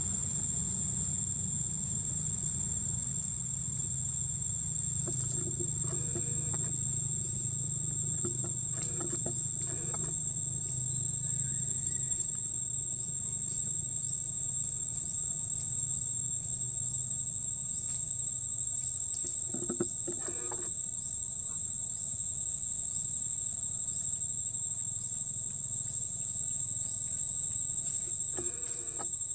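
Steady high-pitched drone of an insect chorus, with a second, lower steady tone beneath it. A low rumble runs underneath and eases off about two-thirds of the way through.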